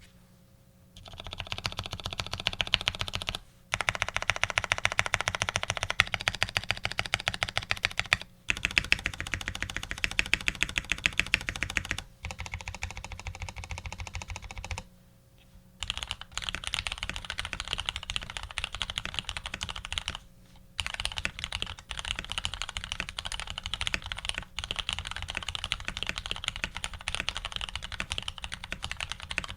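Fast typing on a custom Ar87 mechanical keyboard with lubed Retooled Black linear switches, aluminium plate and PBT keycaps: a dense run of keystroke clacks starting about a second in, broken by brief pauses every few seconds.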